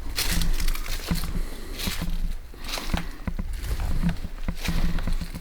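A hiker's footsteps, roughly one step a second, each step a short noisy scuff.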